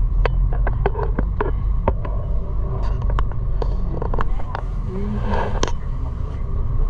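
Tour bus engine and road rumble heard from inside the cabin as the bus drives along, with scattered sharp clicks throughout.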